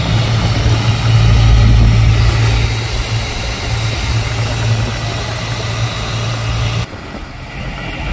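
A fishing boat's engine running steadily, with water rushing along the hull. The sound drops suddenly near the end.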